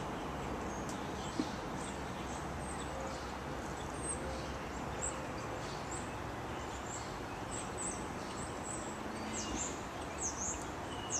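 Small birds chirping: scattered short, high chirps that come more often near the end, over a steady background hiss.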